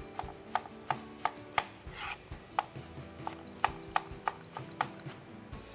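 Chef's knife dicing mango on a cutting board: sharp, even knife strikes on the board about three times a second, stopping shortly before the end.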